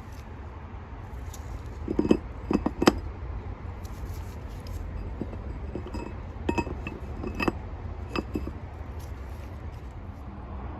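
Metal winch parts clinking and tapping together in scattered, irregular knocks with a short ring as they are handled and lined up.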